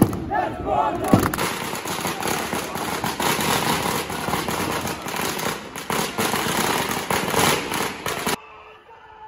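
Crowd of football supporters chanting and clapping, a dense noisy roar full of sharp cracks. Near the end it cuts off suddenly to faint, distant singing.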